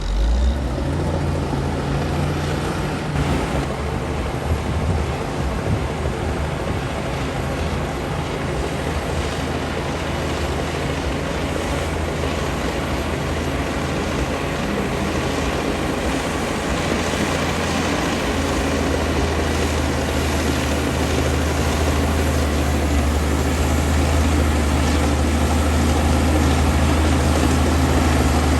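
Komatsu D60P crawler bulldozer's diesel engine running steadily under load, a deep drone over a wide rumbling noise, growing a little louder in the second half.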